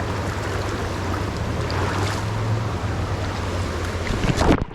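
Stream water rushing, with wind rumbling on the microphone. Near the end, a loud sudden burst of noise, then an abrupt cut.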